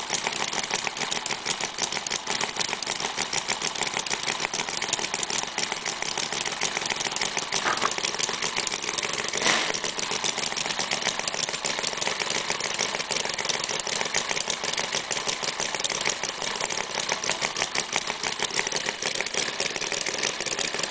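Hand-built miniature V8 model engine, spark-ignited with an OS model-airplane carburetor and 3/4-inch bore and stroke, running steadily with a fast, even firing. One brief sharper click about halfway through.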